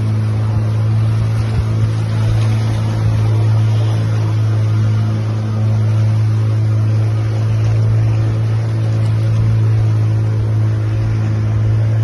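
Motor of a small open wooden boat running steadily under way: a loud, even low drone, with water rushing along the hull.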